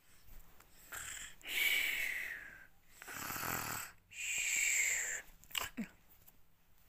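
Two drawn-out mock snores made by a person, each a rasping breath ending in a falling whistle, with a brief low sound near the end.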